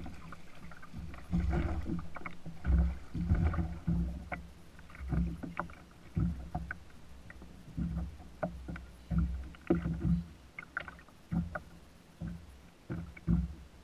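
Irregular knocks, bumps and splashes on a plastic kayak as a small striped bass on an umbrella rig is swung aboard and handled, with short sharp clicks among the thuds.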